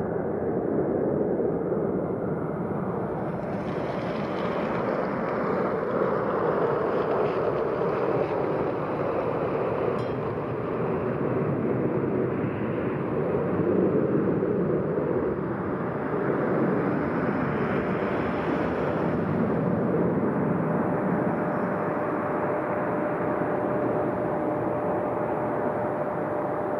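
Airbus A321 jet airliner taking off: the steady roar of its twin jet engines at takeoff power as it lifts off and climbs away. A thin steady tone joins the roar about twenty seconds in.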